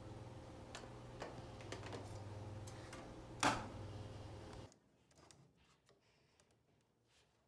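Scattered small clicks and one louder knock about three and a half seconds in, over a steady low hum that cuts off suddenly a little later.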